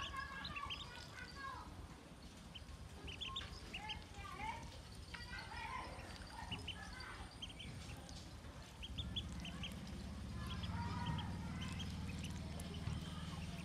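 Ducklings peeping: many short, high chirps, scattered and overlapping throughout. From about nine seconds in, a low steady hum sounds beneath them.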